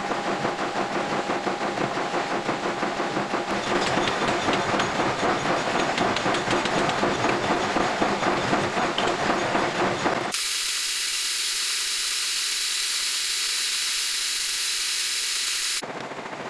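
Metal being machined on a lathe: a loud, continuous rattling cutting noise. About ten seconds in it changes abruptly to a high, even hiss for about five seconds, then quieter machining resumes.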